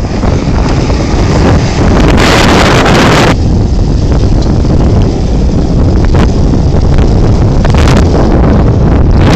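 Heavy wind buffeting the microphone over the low rumble of an off-road vehicle's engine, with a louder rush of noise about two seconds in that lasts just over a second.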